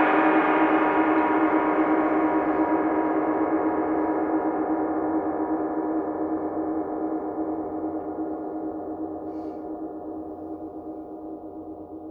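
A struck metal instrument, gong-like, ringing out and slowly fading, its many overtones wavering against each other; the high overtones die away first, leaving a low hum near the end.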